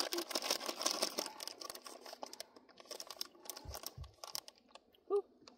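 Plastic candy packet crinkling as it is handled, dense for the first second or so, then a few scattered crackles.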